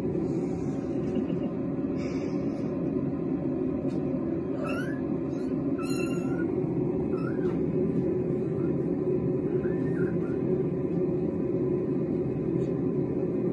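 A very young kitten mewing: about four short, high little mews in the middle of the stretch, over a steady low rumble.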